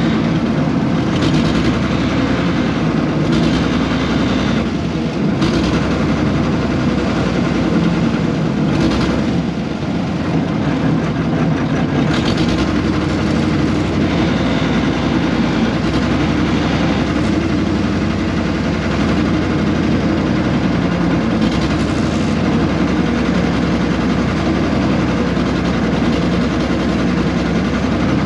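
Air-cooled Deutz diesel engine of a 1970s excavator running steadily under digging load, with a few brief hissy surges over the engine sound.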